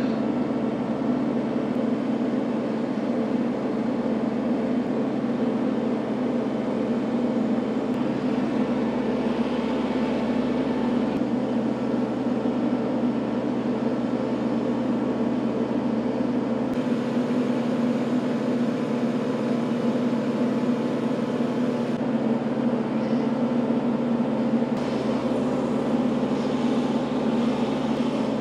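Compact tractor engine running at a steady speed while it carries a log on its front loader.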